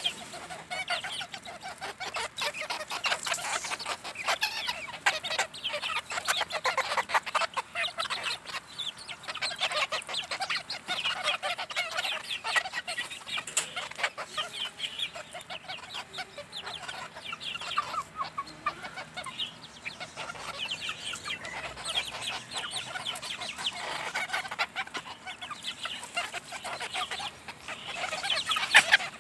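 A flock of hens clucking continuously, many short overlapping clucks, as they crowd together feeding.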